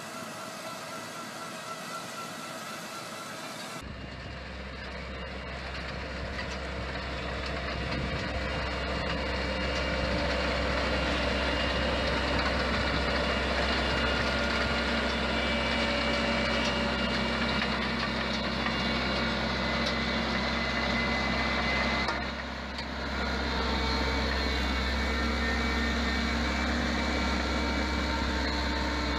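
An engine or machine running steadily with a low hum. It begins suddenly about four seconds in, grows louder over the next several seconds, and dips briefly once about three-quarters of the way through.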